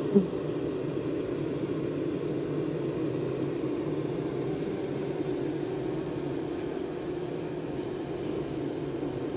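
Steady hum of a honeybee colony's wings at the hive entrance, with one short, louder buzz just after the start.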